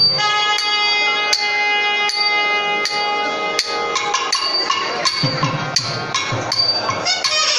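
Nadaswaram playing a long held note, then moving into shorter melodic phrases. Sharp thavil drum strokes sound over it.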